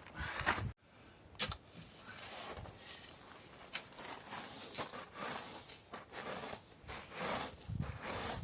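Wind gusting across open ground, heard as an uneven, rustling hiss. There is a single sharp knock about a second and a half in, just after a brief cut-out.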